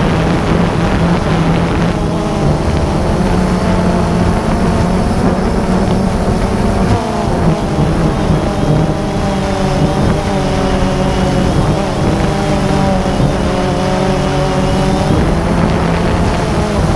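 Multirotor drone's electric motors and propellers buzzing close to its onboard camera's microphone, the pitch wavering up and down as the throttle changes.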